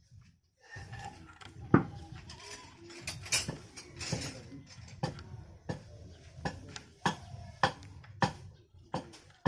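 A series of sharp taps and knocks, irregular at first and then settling into a steady rhythm of about two taps a second, like tools tapping on parts while an electric planer is worked on.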